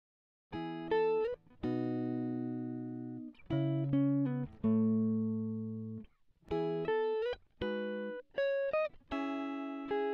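Background music of a clean guitar playing chords and picked notes in short phrases, each ringing and fading, with a few sliding notes. It starts about half a second in.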